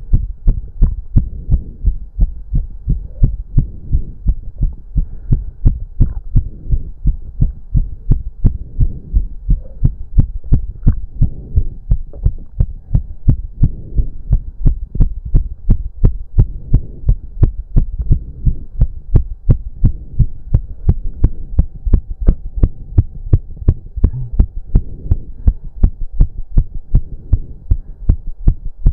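A man's heart beating fast in an even, rapid rhythm of low thumps, pounding after an intense cardio workout. A faint steady hum runs underneath.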